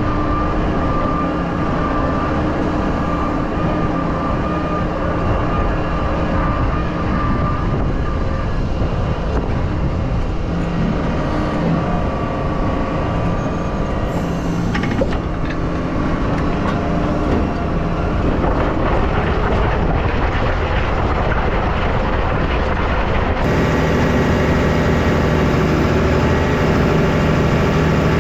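Tractor engine running steadily under load while pulling a plough. About 23 seconds in, the sound switches abruptly to a different, steadier engine note.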